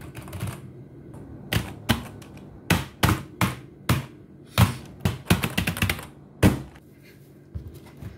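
Keys being struck on a mechanical keyboard: single sharp clacks at irregular intervals, with a quick run of keystrokes about five seconds in.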